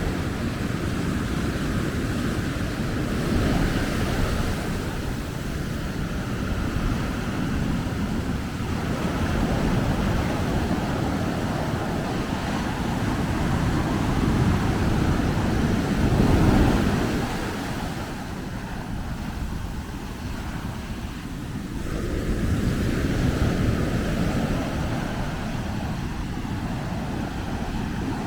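Ocean surf breaking on a sandy beach, the wash swelling and easing every few seconds and loudest about two-thirds of the way through, with wind rumbling on the microphone.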